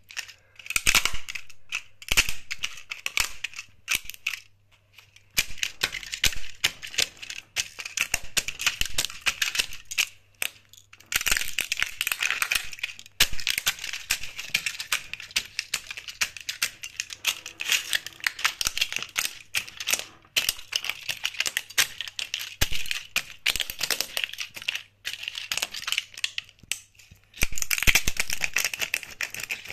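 Plastic scale model airplanes cracking and crunching under the jute sole of an espadrille wedge sandal: dense runs of sharp snaps and crackles in bursts, with short pauses between.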